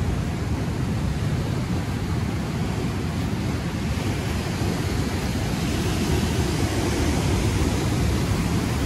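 Ocean surf breaking and washing up a sandy shore in a steady rush, swelling a little about six seconds in, with wind on the microphone.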